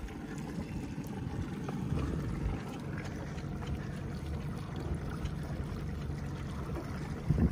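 Water lapping and trickling against the hull of a small fishing boat over a low wind rumble, with a louder bump just before the end.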